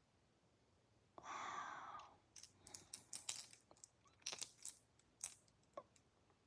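Faint handling noise: a brief rustle about a second in, then a series of small irregular clicks and taps.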